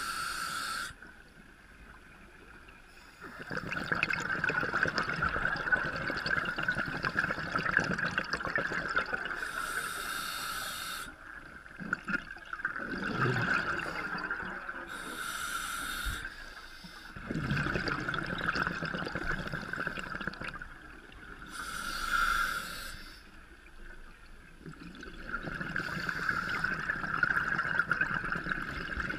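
Scuba diver breathing through a regulator, heard inside a GoPro underwater housing: a short hiss on each inhalation, then several seconds of rumbling exhaled bubbles, repeating every five or six seconds.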